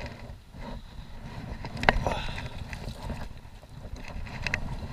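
Muffled rumble heard through a sealed waterproof camera housing as a fishing kayak is worked under a fallen tree. A sharp knock comes about two seconds in, and a couple of lighter clicks near the end.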